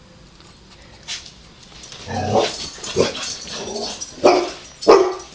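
Domestic cat making a run of loud, angry cries, starting about two seconds in and ending with two sharp outbursts near the end: territorial aggression toward another cat outside.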